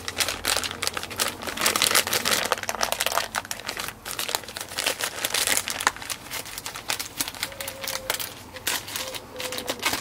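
Clear plastic packaging bag crinkling with many sharp crackles as it is pulled open by hand, thinning out near the end.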